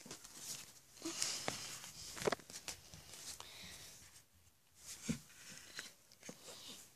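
Faint rustling and crinkling of a disposable diaper being unfastened and opened, with a few small clicks and knocks scattered through.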